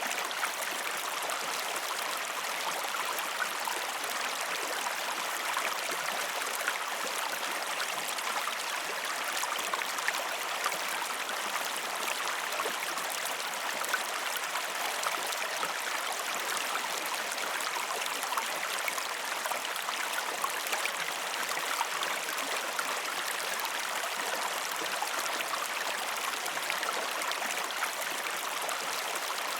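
River water flowing steadily over stones, an even rushing with small splashes and gurgles scattered through it.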